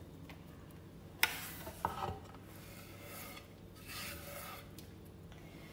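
Faint knife scraping and rasping across a bamboo cutting board while cutting small greens, with two light knocks a little over a second in.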